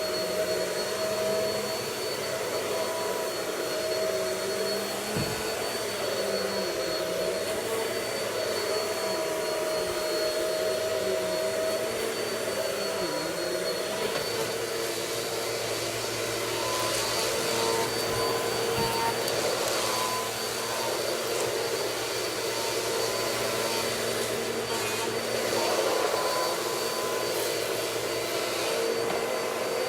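Vacuum cleaner running steadily, its motor giving a continuous high whine over a rushing hum. About halfway through, the hum shifts slightly in pitch.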